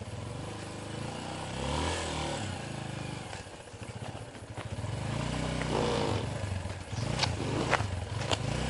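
Yamaha Serow single-cylinder four-stroke trail bike engine running at low speed, the revs rising and falling with the throttle. A few sharp clicks come near the end.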